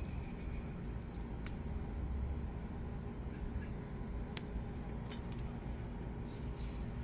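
Light clicks and snaps of snow pea vines being handled as pods are picked, a few sharp ticks scattered over a steady low rumble.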